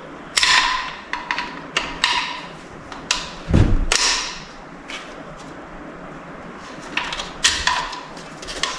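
Metal transmission parts and hand tools knocking and clinking together during a Powerglide teardown: a string of sharp metallic clicks and clanks, a heavier thud about three and a half seconds in, then a lull before a few more clicks near the end.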